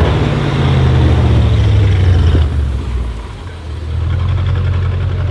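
Audi RS6 C7's twin-turbo 4.0 V8 through a full non-resonated Milltek exhaust: a loud, deep engine note that sinks slightly in pitch, dips briefly about three seconds in, then settles into a steady rumbling idle.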